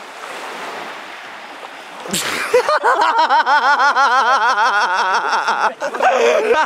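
Faint steady wash of sea waves, then about two seconds in a sudden rush of noise and men breaking into long, rhythmic laughter.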